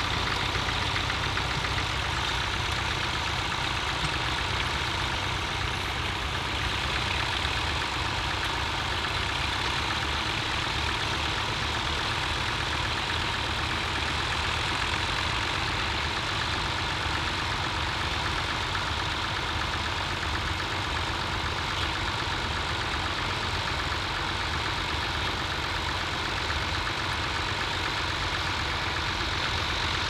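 Engine of a vintage grey Ferguson tractor running steadily as it pulls a mounted plough through stubble, working under ploughing load.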